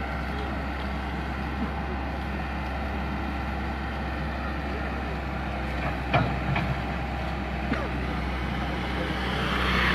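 Hydraulic excavator's diesel engine running steadily as it tears down a brick house, with a few sharp knocks of breaking masonry about six and eight seconds in.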